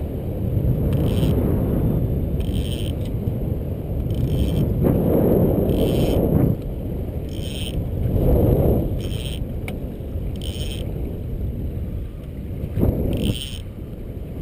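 Wind buffeting the microphone over water lapping against a small boat at water level: a steady low rumble that swells twice, about five and eight seconds in, with a short bump near the end.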